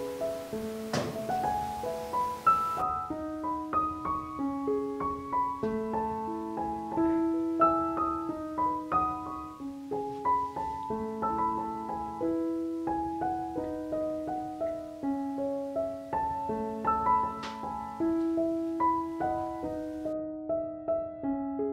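Solo piano background music, a melody of single notes played at an even pace.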